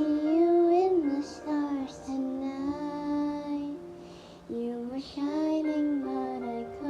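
A young girl singing a slow melody, holding long notes and gliding between them.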